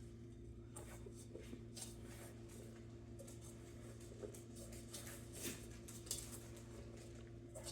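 Hands kneading and mixing stiff biscuit dough in a bowl: faint, irregular squishing and rubbing, over a steady low hum.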